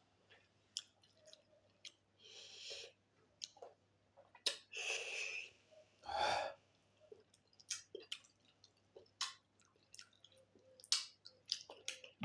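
Close-up sounds of a person eating pork and rice: chewing, with many sharp wet mouth clicks and smacks scattered throughout. Three longer breathy sounds come about two, five and six seconds in.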